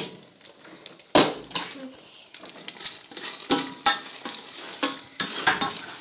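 Spaghetti in Alfredo sauce being stirred in a metal pan, the utensil scraping and knocking against the pan while the sauce sizzles. Two sharp knocks, at the start and about a second in, then busier stirring from about two seconds in.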